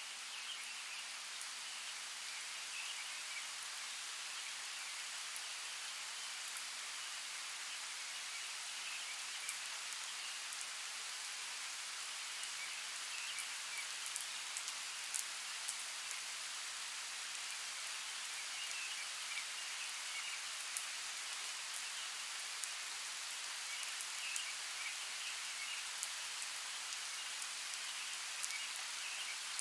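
Steady rain falling, with many individual drops tapping sharply through it. A faint high chirping comes and goes in the background.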